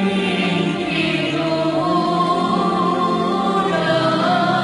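A young girl singing a hymn to the Virgin Mary, holding long notes that waver and glide, over a steady sustained accompaniment.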